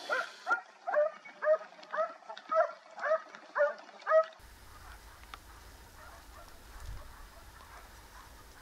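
Hunting hound barking in a steady series, about two barks a second, nine or so in a row, that stops about four seconds in. After that, fainter barking further off under wind rumble on the microphone.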